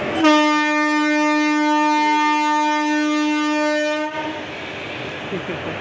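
Indian Railways locomotive's horn sounding one long steady note for about four seconds, cutting off near the end, over the train's running noise.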